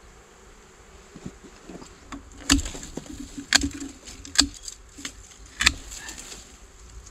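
Dwarf honeybees buzzing around their small hanging nest, over a steady high insect drone. From about a third of the way in, four sharp snaps come roughly a second apart and are the loudest sounds.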